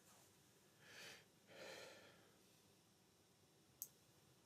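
Near silence, broken by two faint breaths or sighs about a second in and one faint sharp click near the end.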